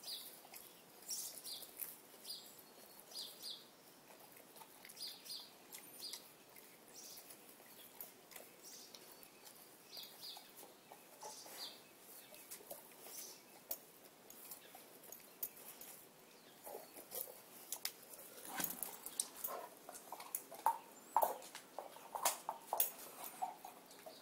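A dog tearing at and chewing grass, with louder crunching clicks in the last several seconds.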